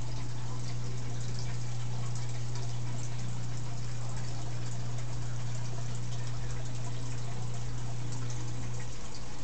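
Aquarium filter running: a steady motor hum under a constant splash and trickle of water, the hum dropping away near the end.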